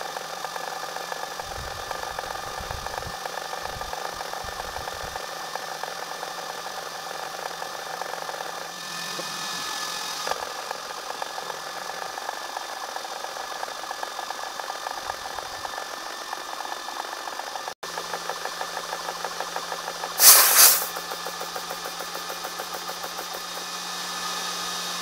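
GX CS1-I portable PCP air compressor running under load while filling an air rifle: a steady, rapid pump chatter with the cooling fans going, a little bit loud. About twenty seconds in there is a brief, loud hiss of air.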